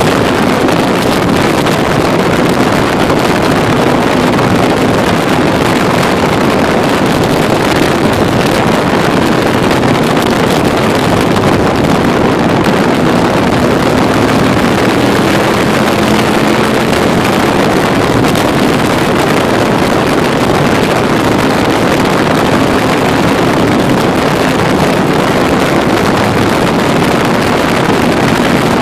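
Can-Am Spyder three-wheeled motorcycle's engine running steadily at road speed, under a loud, steady rush of wind over the microphone.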